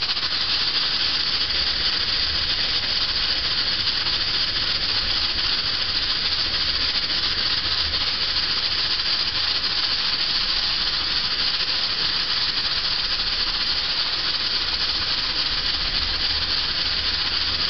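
Aluminium pressure cooker up to pressure, steam hissing steadily and evenly from its weighted vent.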